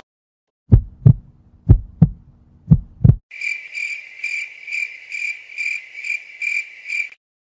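Heartbeat sound effect: three lub-dub pairs of dull low thumps about a second apart, then a crickets sound effect: about ten high chirps, two or three a second, stopping shortly before the end.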